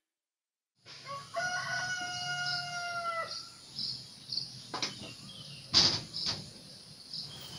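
A rooster crowing once, a long held call of about two seconds, over a faint outdoor hiss with high chirps. A few sharp clicks or knocks follow in the second half.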